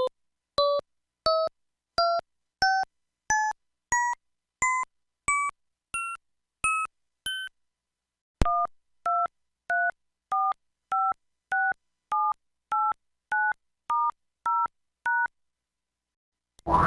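Mobile phone keypad tones from a Pantech PT-S140, recorded dry off the handset's line output. First come twelve short two-note beeps, each a step higher in pitch than the last. After a click, twelve standard DTMF dialing tones follow at a steady pace about 0.6 s apart.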